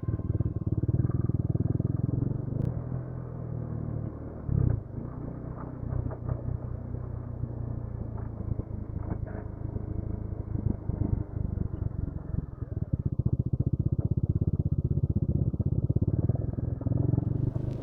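Motorcycle engine running steadily at low revs, a low rumble with its even firing pulses.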